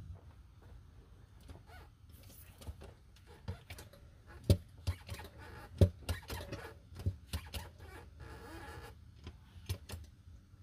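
Irregular footsteps and light knocks and clicks of a person moving around and handling a gear-oil bucket pump, loudest about four and a half and six seconds in, over a faint low rumble.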